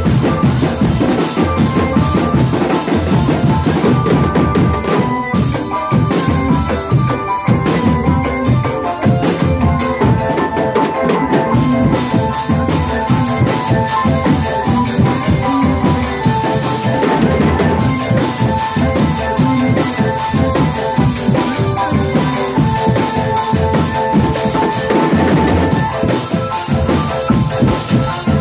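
Drumband playing dance music: bass drums and snare drums keep a steady, busy beat, with a melody of held notes over it.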